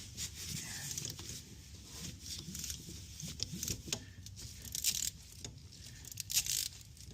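Ratchet and 15 mm socket being worked on the belt pulley bolt: scattered small metallic clicks and rattles.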